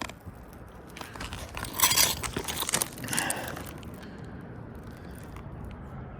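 A tool scraping and crunching under a 3-tab asphalt shingle as its sealant strip is pried loose, in rough bursts loudest about two seconds in and again about a second later.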